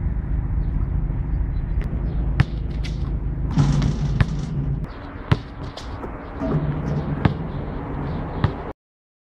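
Basketball bouncing on an asphalt court: sharp single hits about a second apart, over a steady low rumble. The sound cuts off abruptly near the end.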